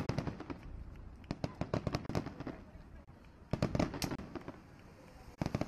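Aerial fireworks shells bursting, with rapid strings of sharp cracks and bangs. They come in clusters: one at the start, another about one and a half seconds in, another at about three and a half seconds, and a fresh volley near the end.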